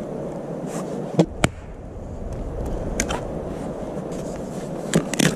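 Sharp wooden knocks and cracks from splitting and handling firewood kindling on a stump chopping block: about five separate strikes, with a close pair near the end, over a steady background hiss.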